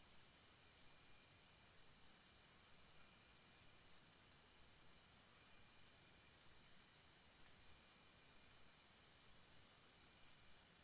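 Faint singing birds: a steady high pulsing trill with brief higher chirps now and then.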